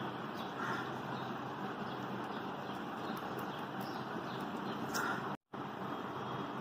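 Steady background hiss of room noise with a few faint, short higher sounds, cutting out abruptly for a moment about five seconds in.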